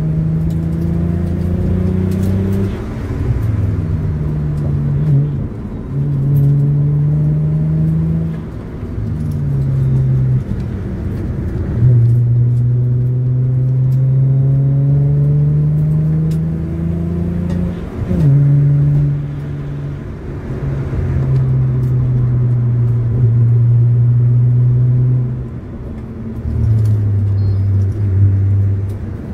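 Hyundai Tiburon's 2.7-litre V6 on its stock exhaust, heard inside the cabin while driving on a winding road. The engine note climbs slowly and drops back about six times as the driver goes through the gears and lifts off, and near the end it settles lower and steady.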